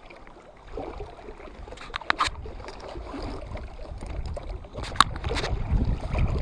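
Wind buffeting the microphone over lake water lapping against shoreline rocks, the rumble growing stronger from about two seconds in. A few sharp clicks come about two seconds in and again about five seconds in.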